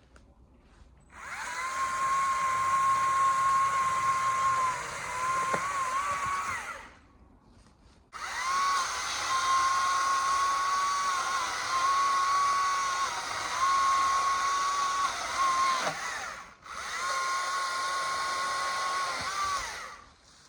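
Stihl chainsaw running at high revs in three long runs, about six, eight and three seconds, with short pauses between; its pitch dips briefly now and then.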